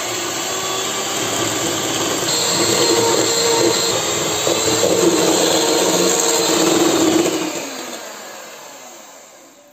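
SilverCrest electric hand mixer running, its beaters whipping egg whites and sugar into stiff meringue in a stainless steel bowl. A steady motor whine, loudest in the middle, that dies away over the last two seconds.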